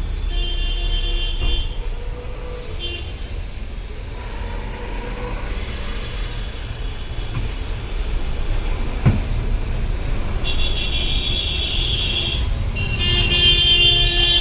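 Road traffic rumbling steadily, with vehicle horns sounding at the start and twice more, longer, near the end, plus a single knock about nine seconds in.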